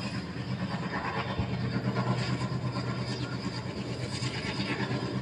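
A steady low engine drone in the background, with light scraping of small steel spoons against a tiny clay pot of flour and ghee.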